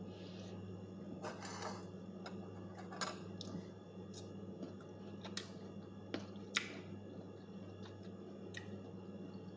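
Biting and chewing slices of sour green mango: a few short, sharp crunches and mouth clicks, the loudest about two-thirds of the way in, over a steady low hum.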